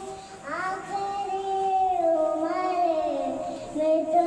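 Children singing a naat, an Islamic devotional song, in long held notes, with a slow downward slide in the melody midway.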